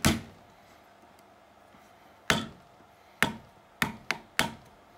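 Sharp knocks on a screwdriver wedged into the glued seam of a small plastic power-supply case held in a bench vice, as it is forced open. One knock comes at the start, another a little past two seconds in, then four in quick succession near the end.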